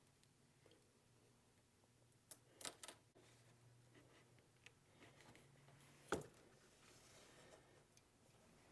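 Near silence with a faint low hum and a few soft clicks and taps of handling, a pair about two and a half seconds in and a sharper click about six seconds in.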